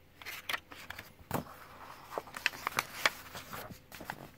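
A picture book's cover being opened by hand and the page pressed flat: a run of paper rustles and crackles with a few sharp clicks.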